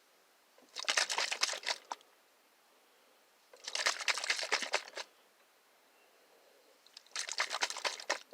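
A water-filled Pet Tornado vortex toy shaken hard in three short bouts of about a second each, its contents sloshing and rattling inside the plastic case.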